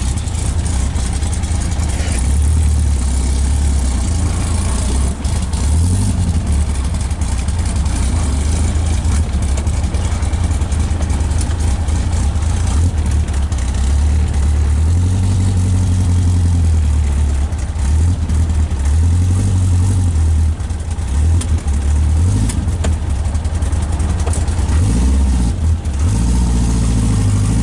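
1951 Morgan Plus 4's four-cylinder engine, fitted with a racing cam, running under way. Its note rises and falls several times as the car accelerates and changes gear, with wind and road noise around it.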